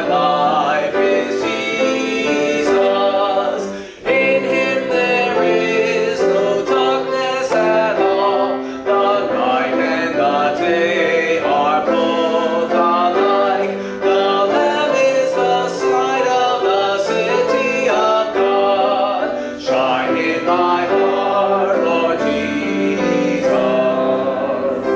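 Voices singing a hymn together, accompanied on a grand piano, in phrases with short breaths between them about every five seconds.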